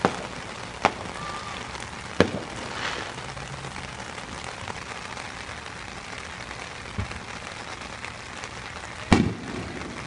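Aerial fireworks bursting: three sharp bangs in the first two seconds, a softer one later and the loudest near the end, over a steady patter of rain.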